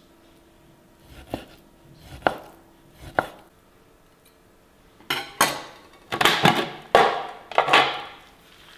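Kitchen clatter of utensils and dishes: three separate knocks, then a busier, louder run of clatter about five seconds in.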